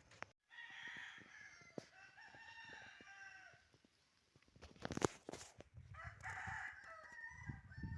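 A rooster crowing: one long crow of about three seconds, then a sharp click about five seconds in and more calls near the end.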